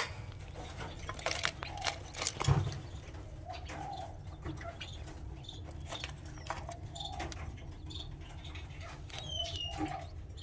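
Caged birds giving short, low cooing calls while the wire cage rattles and knocks as a hand reaches in for eggs, with a loud knock at the start and another about two and a half seconds in. A few high, falling chirps come near the end, over a low steady hum.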